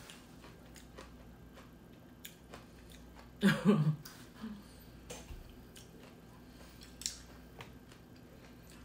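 A person chewing soft noodles from red bean kalguksu with the mouth closed, with a few faint wet mouth clicks. One brief vocal sound about three and a half seconds in is the loudest thing.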